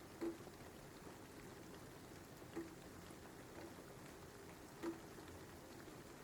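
Steady rain, faint, with a few louder single drips landing now and then: three clear ones and a weaker fourth.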